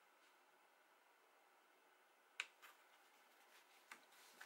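Near silence, broken about two and a half seconds in by one sharp tap and a softer one, then a few faint ticks near the end: fingertips pressing a small glued paper piece down onto card.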